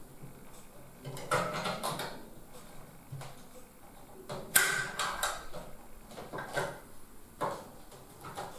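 Cables being unplugged from an old IDE hard drive inside a computer case: the Molex power plug and the ribbon cable's connector are worked loose by hand, giving irregular plastic clicks, scrapes and rustles. One sharper knock comes about four and a half seconds in.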